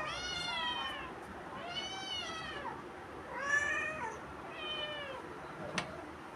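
A cat meowing four times, each meow rising then falling in pitch, with a short sharp click near the end.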